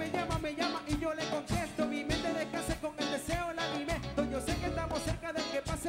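Live band playing a song over a steady drum beat, with electric guitars, bass, congas and keyboard, and a voice singing.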